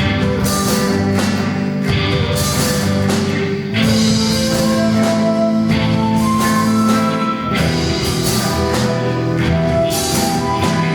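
Live band playing an instrumental rock piece: electric and acoustic guitars, keyboard and flute over a drum kit, with held melodic notes and regular cymbal hits.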